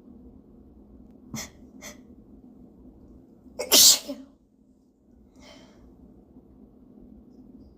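A person sneezing with hitching breaths: two short catching inhalations about a second and a half in, then one loud sneeze near the middle, followed by a fainter breath.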